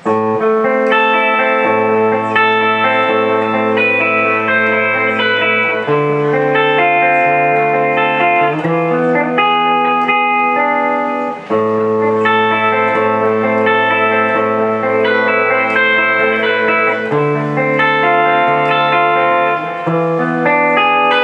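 Ibanez Premium electric guitar played with a clean tone: arpeggiated chords ring over held bass notes, and the chord changes every couple of seconds. There is one brief break about eleven seconds in.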